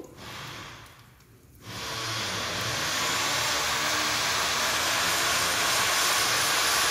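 A steady, loud hissing rush that starts about two seconds in, with a faint high whine slowly rising in pitch through it.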